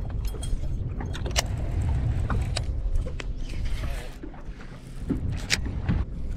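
Wind rumbling on the microphone, with scattered sharp clicks and ticks from handling a baitcasting reel and a metal spoon lure. The rumble eases about two thirds of the way through.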